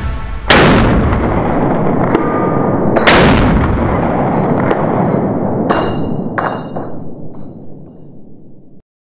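Two rifle shots from a semi-automatic AR-style rifle, about two and a half seconds apart, each with a long echoing tail. A few lighter clicks and briefly ringing metallic clinks follow as the echoes die away, and the sound cuts off near the end.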